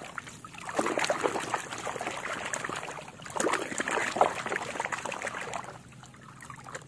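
Muddy water splashing and sloshing in a plastic basin as a plastic toy car is swished and scrubbed by hand under the surface, with many small quick splashes. It goes quieter near the end as the car is lifted from the water.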